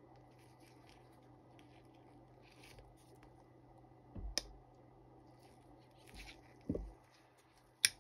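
Faint rustling and scratching of gloved hands handling a liner-lock folding knife with titanium liners. A sharp metallic click of the blade comes about four seconds in, a dull knock near seven seconds, and the loudest click just before the end as the blade is opened.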